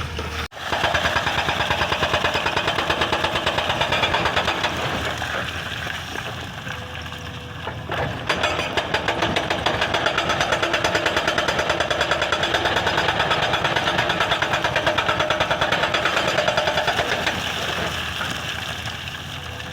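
Excavator-mounted hydraulic breaker hammering rock in rapid, even blows over the running engine, dropping out briefly near the start and easing for a couple of seconds midway before hammering again.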